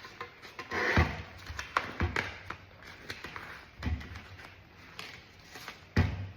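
Old leather cover being pulled off a steering wheel: rustling and peeling of the leather, with a few short knocks as the wheel is handled, the loudest about a second in and near the end.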